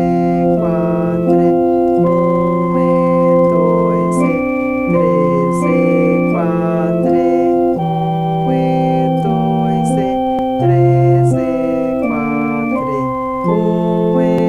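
Electronic organ playing a simple melody in F major, with the right hand playing the tune over low left-hand notes that are each held for about two beats.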